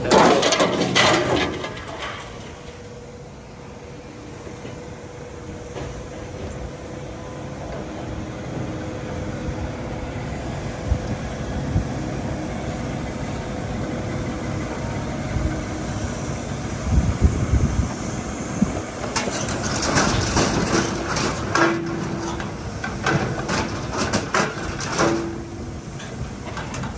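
Metal clattering and knocking, loud at the start and again through the last third, over a steady running engine with a faint steady tone in the quieter middle stretch.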